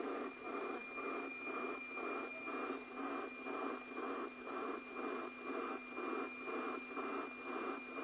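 NOAA 15 weather satellite's APT image signal from the Yaesu FT-847's speaker: a steady high tone over hiss, with a tick-tock beat about twice a second, one beat per image line sent. The signal is strong and the image is decoding as it comes in.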